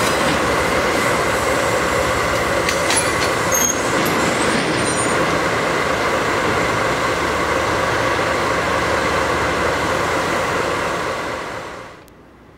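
A pair of DD51 diesel-hydraulic locomotives run past slowly with tank wagons, their engines running steadily. A brief high wheel squeal comes a few seconds in. The sound drops away abruptly about a second before the end.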